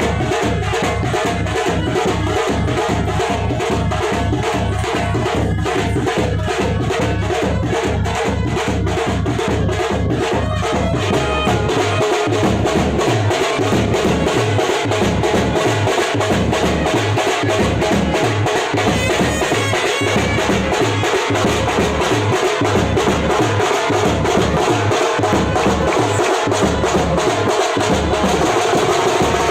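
Background music with a steady percussive beat; a heavier bass beat comes in about twelve seconds in.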